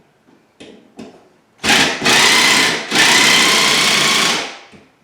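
Power drill driving a screw into wood in three bursts, the first starting about one and a half seconds in and the last and longest winding down near the end. A few light clicks come before it.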